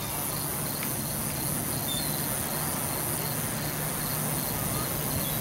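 Crickets chirping in a steady, regular rhythm over a constant low hum and a broad rush of outdoor noise.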